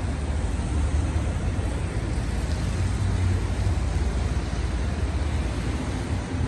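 Steady outdoor city noise: a low, fluctuating rumble and hiss of road traffic, with wind buffeting the microphone.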